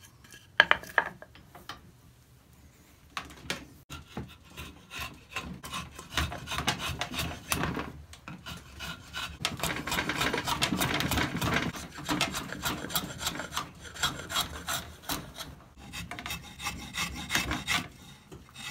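A long flat file scraping back and forth across a hickory axe handle held in a vise, in quick, steady strokes. Two sharp knocks come near the start.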